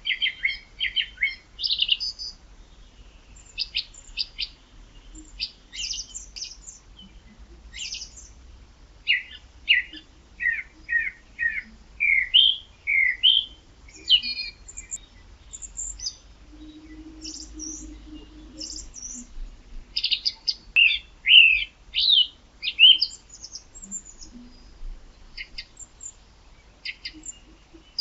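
Songbirds singing: a run of short chirps and quick trill phrases, coming in clusters with a few brief lulls.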